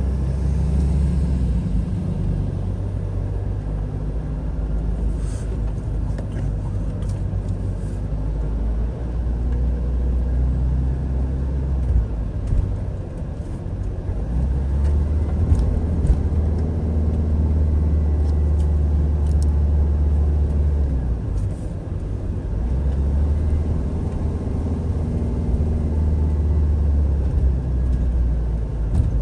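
Camper van driving: steady low engine and road rumble, its deep hum shifting in pitch and strength every few seconds as the engine speed changes.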